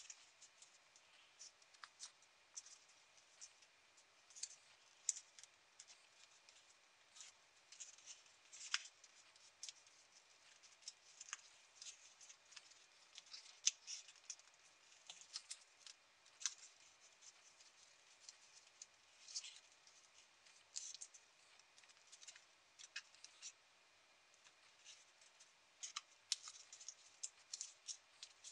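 Small sheet of origami paper crinkling and crackling between the fingers as it is folded and pressed into creases: faint, irregular clicks and rustles.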